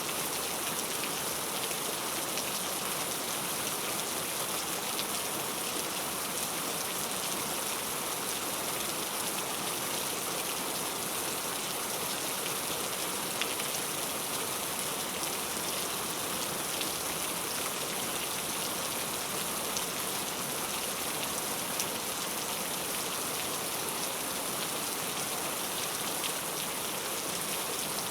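Heavy rain falling steadily: an even hiss of rain with a few sharper individual drop ticks scattered through it.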